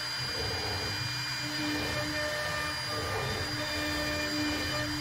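Homemade CNC router at work, its spindle whining steadily while a V-bit engraves grid lines into the sacrificial board. A lower hum from the axis motors comes and goes as the gantry moves.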